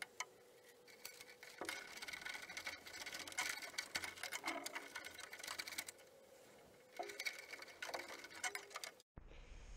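Faint rapid clicking and rattling of a wire being handled and fed against a bare Classic Mini steel body shell, with a short lull about six seconds in; it cuts off suddenly about nine seconds in.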